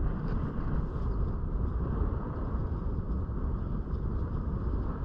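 Steady low rumble of wind buffeting the microphone out on open water.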